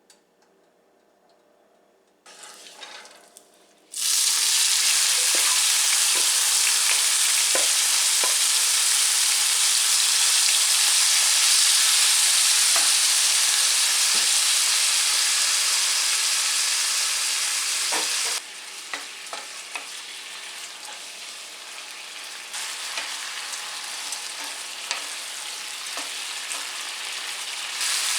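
Marinated pork frying in hot oil in a skillet: a loud, even sizzle starts about four seconds in, with scattered taps and scrapes of a utensil stirring. About two-thirds through the sizzle drops suddenly and carries on lower.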